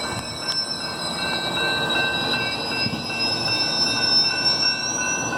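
Amtrak Sunset Limited passenger train arriving, its wheels squealing on the rails in several steady high-pitched tones, one of them slowly rising, over a low rolling rumble.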